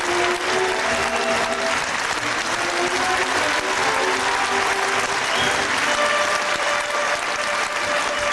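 Theatre audience applauding steadily, with an orchestra playing sustained notes underneath.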